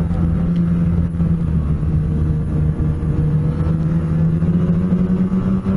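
Snowmobile engine running steadily at trail cruising speed, heard from the rider's seat over the rumble of the track and wind; the engine note rises a little about four seconds in.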